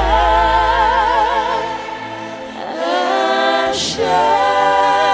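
Gospel worship song sung by several voices together, holding long notes with vibrato over a deep sustained bass note from the band.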